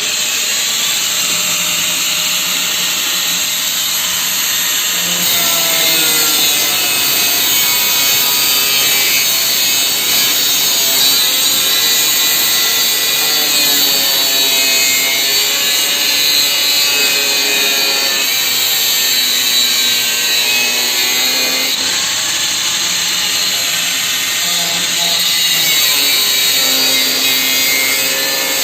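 Angle grinder cutting continuously: a loud, steady grinding noise with the motor's pitch wavering up and down.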